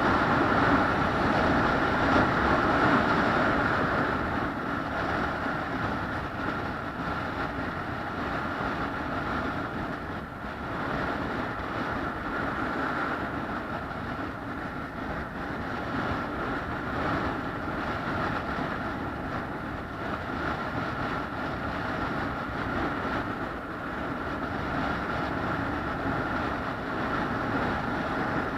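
Steady running noise of a moving vehicle, slightly louder for the first few seconds and then even.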